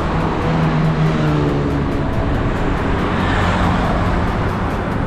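Wind rushing over the microphone of a camera on a moving bicycle, mixed with road traffic; the engine of a passing motor vehicle comes up briefly near the start and again about three seconds in.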